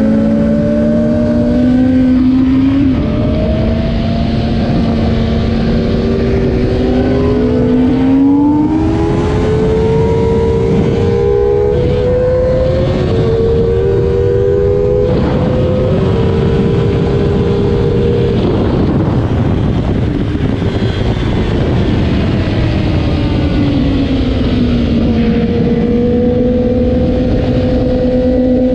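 A stock 2008 Kawasaki ZX-10R's 998 cc inline-four, heard from on board at speed under heavy wind rush. The engine pitch climbs and steps through several gear changes in the middle, then falls away as the bike slows, and settles to a steady pitch near the end.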